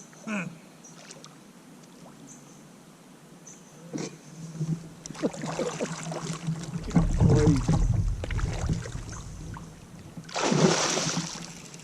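A big hooked fish thrashing in the water beside a kayak, with water sloshing and knocking against the hull, and one loud splash near the end.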